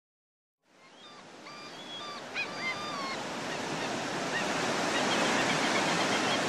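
Surf washing on a beach, fading in after a moment of silence and growing steadily louder, with a few bird calls over it.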